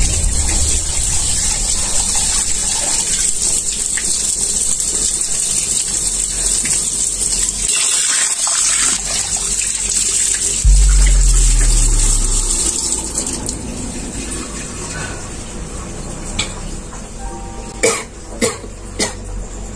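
Tap water running steadily into a sink basin. About halfway through, a sudden deep low sound comes in and fades over a couple of seconds. A few sharp clicks follow near the end.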